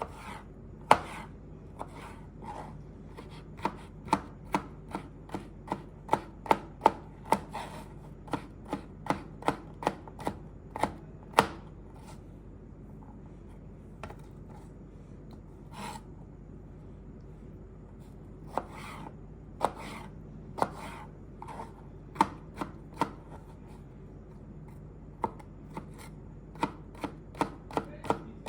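A knife chopping food on a cutting board in sharp, irregular strokes, about two a second in runs, with a sparser pause around the middle.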